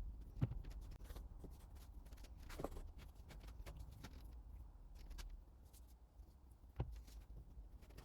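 A few scattered light knocks and clicks over a low steady hum, the sharpest about half a second in and again near seven seconds.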